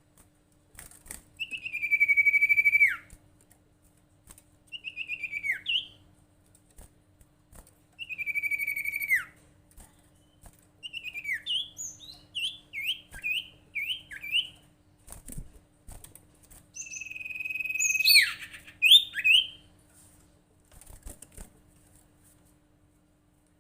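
Sirtu, a kind of iora, calling: long whistled notes held for a second or more that drop sharply in pitch at the end, alternating with quick runs of short up-and-down chirps. A faint steady hum lies underneath.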